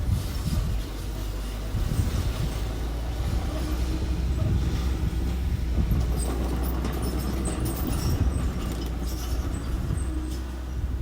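Engines of earth-moving machinery running steadily with a low rumble, with scattered light clanks and ticks about halfway through.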